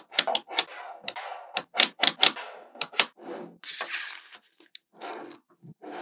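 Small magnetic balls clicking and clacking as little clusters of them snap onto a panel built of magnetic balls: irregular sharp clicks with a light rattle between them, and a short spell of rattling around the middle.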